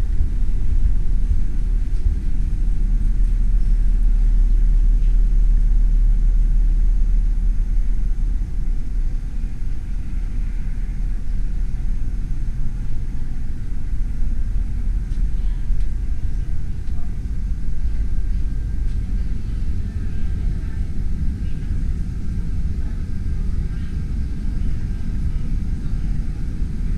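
A loud, steady low rumble, a little weaker in the second half.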